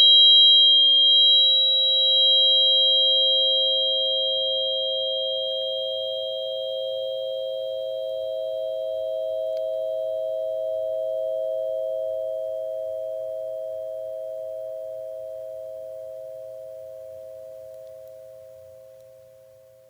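The last ringing note of a meditation song, a bell-like tone made of two low pitches with fainter high ones, fading away slowly and smoothly until it is almost gone.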